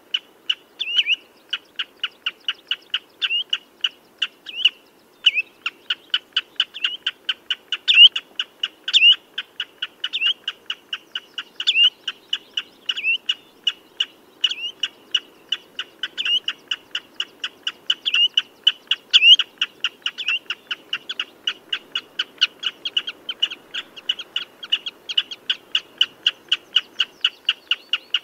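Common redshank calling: a fast, steady run of short, high piping notes, about four a second, with louder up-slurred notes mixed in.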